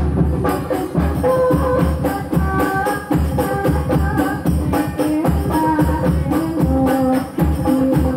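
Hadroh music: a group of girls singing a devotional song together over rebana frame drums. The drums keep up a steady, busy rhythm with a repeating deep beat under the slaps.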